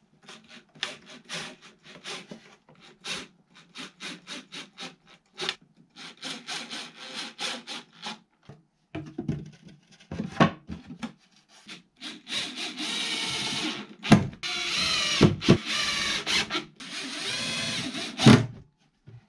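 A cordless impact driver drives screws into an old wooden drawer, running in three bursts of about two seconds each in the second half to reinforce joints whose nails have corroded. Before that come many short clicks and knocks of wooden boards being handled and fitted.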